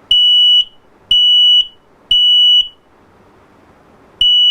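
Smoke alarm sounding under a test-button press: three loud, high-pitched beeps about a second apart, a pause, then the next group starting near the end. The three-beep cycle is the smoke signal, repeating as long as smoke is sensed (a carbon monoxide alarm beeps four times, faster).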